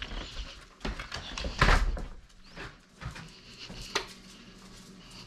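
Footsteps and dogs' paws shuffling on a hard floor, with a few knocks and bumps. The loudest is a thump about a second and a half in, and a sharp click comes near the end. A low steady hum comes in about halfway through.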